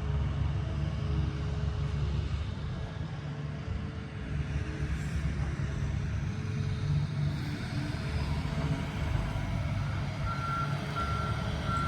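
Heavy construction equipment running with a steady low engine rumble. Near the end a reversing alarm starts beeping, about two beeps a second.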